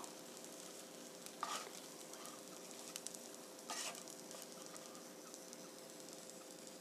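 Faint, steady sizzle of oil in a frying pan holding green chili pancakes, with two brief scrapes of a metal spatula against the pan, about a second and a half in and again near four seconds, as the pancakes are lifted out.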